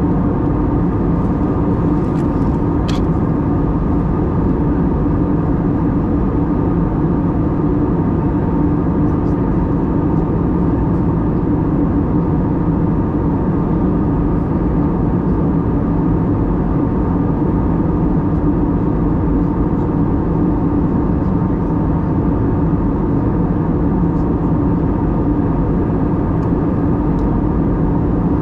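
Steady cabin noise inside an Airbus A320neo airliner, an even engine and airflow rush with a constant low hum. A few faint ticks are heard, one about three seconds in.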